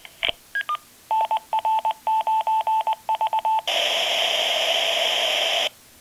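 Test signal played through an Astatic VS-4 communications speaker and picked up by a microphone. Two short beeps come first, then a Morse code ID keyed on a single tone of about 900 Hz, then two seconds of pink noise that cuts off suddenly.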